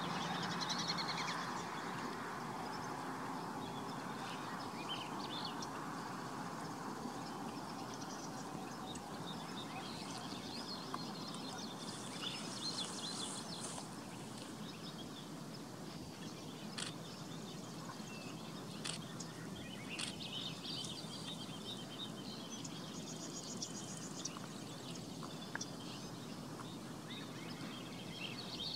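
Marsh ambience: a steady background hiss with small birds calling on and off in short high chirps and trills. A few sharp clicks come in the middle.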